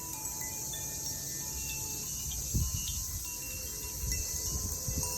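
Koshi chime ringing lightly, a few faint tuned notes sounding and fading, over a steady high insect drone and a low rumble of wind on the microphone.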